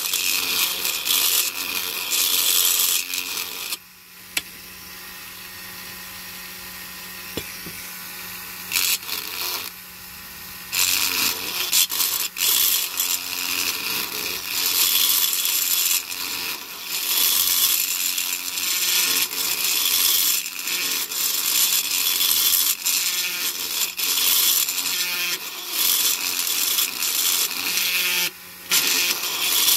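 Handheld rotary tool with a burr grinding down the mushroomed head of a diecast metal rivet to release the baseplate, a high-pitched grinding that comes and goes as the burr is worked round the rivet. From about four to eleven seconds in it runs quieter, the motor humming with the burr off the metal, and it eases off again briefly near the end.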